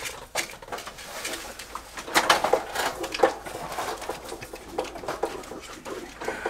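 Irregular clicks, taps and light clatter of handling a portable propane grill while it is set up for cooking.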